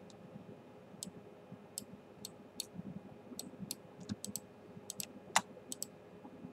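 Computer mouse clicking irregularly, about fifteen short sharp clicks with one louder click a little past the five-second mark, over a faint steady hum.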